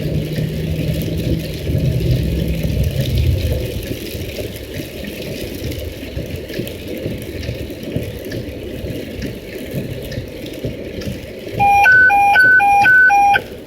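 Radio dispatch alert tones near the end: a loud alternating high-low beep, about two cycles a second, for roughly two seconds. Underneath, a steady engine-and-road rumble runs throughout, with a low engine hum in the first few seconds.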